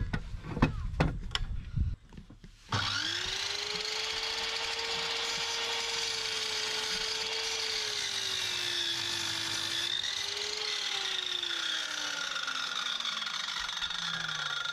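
Metabo sliding mitre saw crosscutting a square timber beam, after a few knocks as the beam is set in place. The motor starts abruptly about three seconds in and runs at a steady pitch. The pitch dips briefly about ten seconds in, then slowly falls away near the end.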